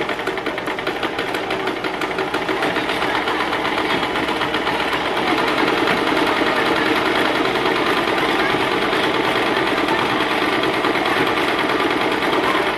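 Electric domestic sewing machine running steadily at speed, a fast continuous run of needle strokes as it stitches through bundled woven cord.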